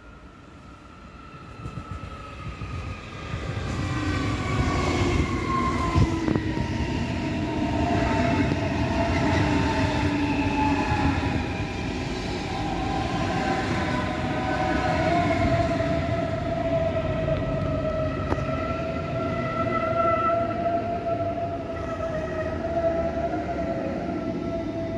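Class 423 S-Bahn electric multiple unit pulling in and braking. The rumble of wheels on rail carries a whine from the electric traction drive that glides down in pitch as the train slows, then holds on a steady tone once it has nearly stopped. A few sharp clacks come over the points.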